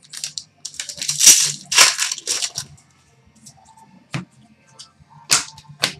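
Rustling and crinkling of a foil trading-card pack wrapper and cards being handled, most of it in the first half, followed by three sharp clicks of cards being set down.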